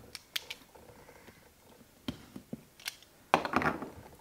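Box cutter slicing through the seal of a cardboard product box, heard as a few short scrapes and clicks. A louder cardboard rush comes a little over three seconds in as the lid is pulled open.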